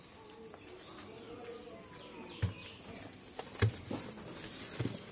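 A hand-held phone being moved about, with three sharp knocks on its microphone, over a faint outdoor background of low wavering calls.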